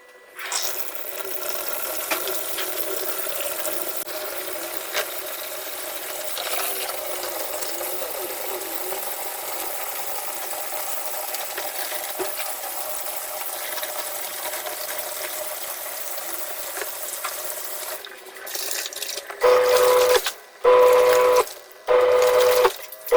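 Tap water running steadily, filling the wash tub of a twin-tub washing machine. Near the end it gives way to three loud bursts of a steady hum that start and stop abruptly.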